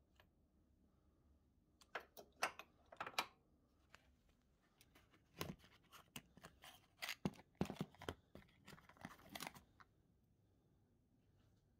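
A small cardboard spark plug box being handled and opened and the new plug taken out: sharp cardboard crackles and clicks in two bursts, one about two seconds in and a longer one from about five to nine and a half seconds.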